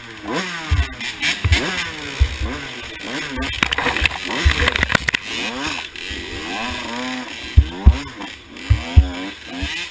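2012 KTM 85 SX two-stroke dirt bike engine, fitted with a big bore kit, revving up and down over and over as it is ridden hard along a rutted trail. Short low thumps run through it, with a patch of sharp clicks about four seconds in.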